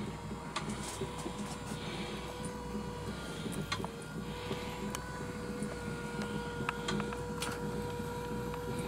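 Stuart Major model beam engine running: a steady mechanical hum with irregular light clicks and knocks. The noises come from its parts being only loosely assembled.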